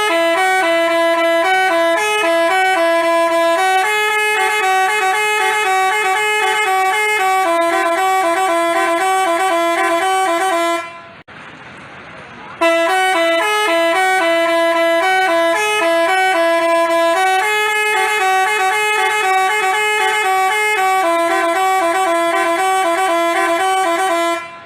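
Basuri telolet horn, a multi-tone musical horn, playing a tune of held and quick notes; the same melody plays through twice with a short break about halfway.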